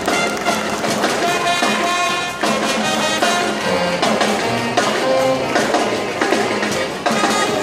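Marching band playing, mainly brass instruments.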